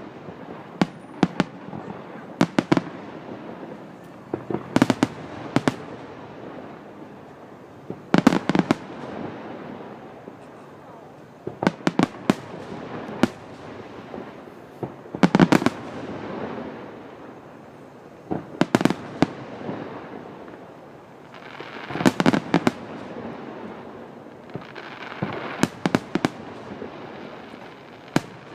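Aerial fireworks shells bursting in clusters of sharp bangs every three to four seconds, with a hissing, crackling haze between the volleys.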